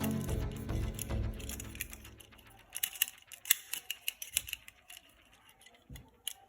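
Background music fades out over the first couple of seconds, then a run of sharp clicks and small rattles of hard plastic being handled, like toy parts being taken out and fitted together.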